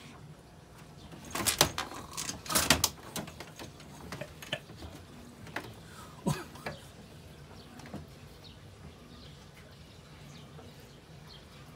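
A cat's claws scrabbling and knocking on the plastic casing of a wall-mounted air conditioner as it hauls itself up onto the top. A cluster of scratchy knocks comes about one to three seconds in, then a few single clicks.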